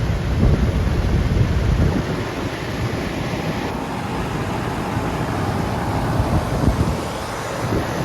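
Outdoor central air-conditioner condenser running steadily, its compressor a recent replacement. Heavy wind buffets the microphone for the first two seconds, then eases off.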